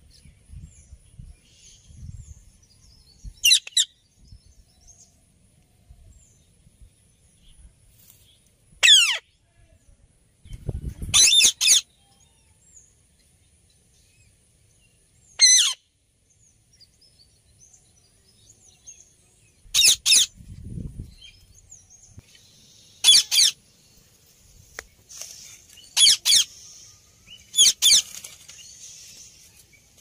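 Alexandrine parakeet giving short, loud, harsh screeching calls, about eight of them a few seconds apart, some coming in quick pairs. A low rustling sounds under two of the calls.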